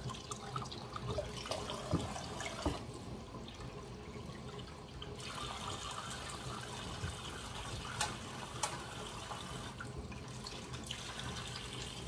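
Water running steadily from a kitchen tap into a sink, with a few light knocks.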